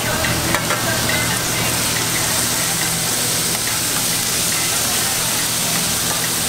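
Minced-pork tteokgalbi patties sizzling on a flat-top griddle, a steady frying hiss. Metal spatulas click against the griddle a few times in the first second as the patties are worked, over a faint steady low hum.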